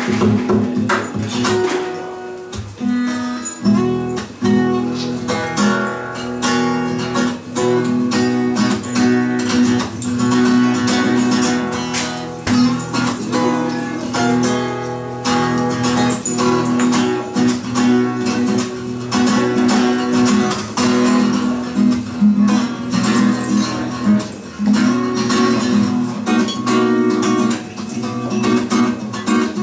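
Acoustic guitar played live as improvised accompaniment, quickly strummed with picked notes over a steady low note that holds throughout.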